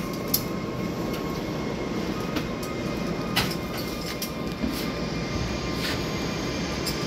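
Steady mechanical running noise with a thin, even whine. A few sharp clicks or knocks stand out, about half a second in, midway through and near the end.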